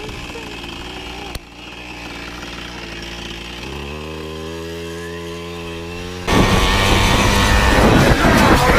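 A small motorbike engine running steadily, then revved up about three and a half seconds in and held at the higher revs. About six seconds in, a much louder, rushing sound cuts in suddenly.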